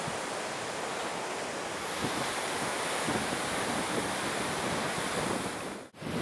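Strong gale-force wind blowing steadily with a dense hiss, gusts buffeting the microphone with low rumbles. The sound cuts off sharply near the end.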